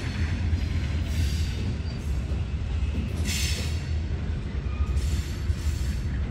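Diesel freight train, led by a former Conrail locomotive and a former Santa Fe GE B23-7, rumbling steadily, with the hiss of wheels on rail swelling every second or two.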